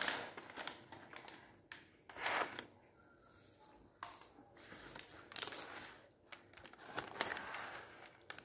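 Eating sounds close to the microphone: a chocolate-filled puff-pastry saccottino being chewed and handled, its flaky pastry crackling and rustling in a run of soft crackles, loudest about two seconds in and again near the end.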